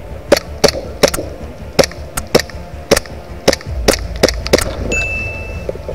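Airsoft pistol, a WE Glock 19 gas-blowback, firing about a dozen sharp shots in quick, uneven succession.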